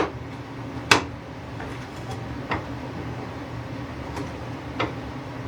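Four sharp knocks of hard objects being handled and set down. The first two are the loudest and come about a second apart at the start; two fainter ones follow later. A steady low hum runs underneath.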